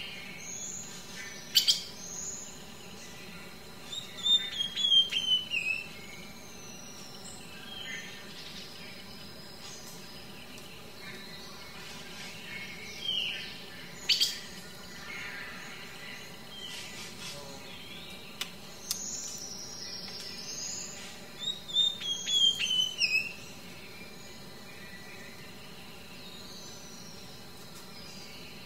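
Birds chirping and calling, with two quick runs of short descending chirps about four seconds in and again late on, and high thin whistles between them. Two sharp clicks stand out as the loudest sounds, one early and one about halfway through.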